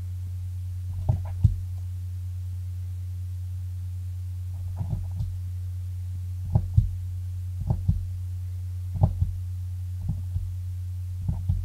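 Fifine SC3 USB mixer's RGB lighting button being pressed over and over, about seven presses, each a short click or quick double click, over a steady low electrical hum.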